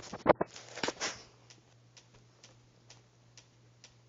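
Close knocks and scuffing as a dog brushes against the camera, then faint, evenly spaced ticks about twice a second.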